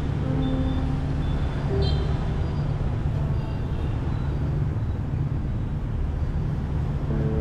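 Street traffic: a steady rumble of engines and tyres, with a few brief high-pitched tones in the first two seconds.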